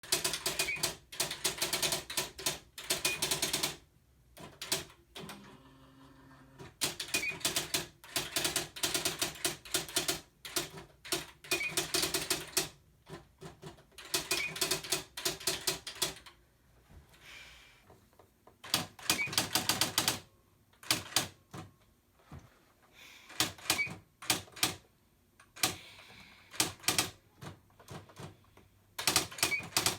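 Typewriter being typed on: runs of rapid key strikes lasting a few seconds each, broken by short pauses.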